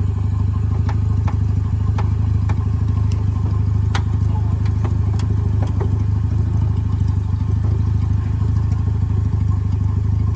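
A vehicle engine running at a steady low drone, with scattered sharp clicks and knocks over it.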